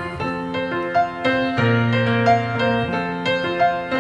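Instrumental music with no singing: a keyboard, piano-like in sound, plays a melody of short separate notes over sustained bass notes.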